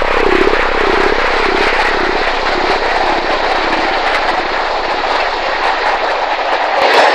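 Freight train rolling past, with a steady low engine hum beneath the rumble and a mid-pitched tone that wavers up and down; the hum stops near the end.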